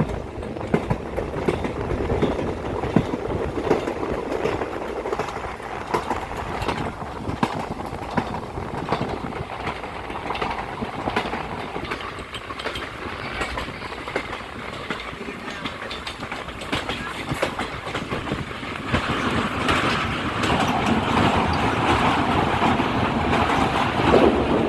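Passenger train coach running along the track, wheels clicking over rail joints over a steady rolling noise, growing louder about three quarters of the way through.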